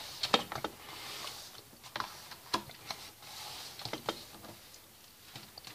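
Notebook paper handled by hand: a page being turned and smoothed flat, with scattered light ticks and taps and short papery rustles.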